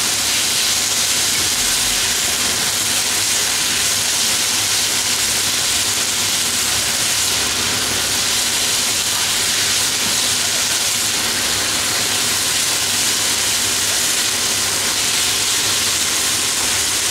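Strips of pork sizzling steadily in a hot frying pan as they are stir-fried: an unbroken, loud hiss.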